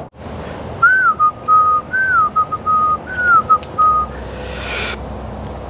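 A person whistling a short tune: a rising-and-falling note followed by a held note, repeated three times over about three seconds. Then a brief hiss of about a second.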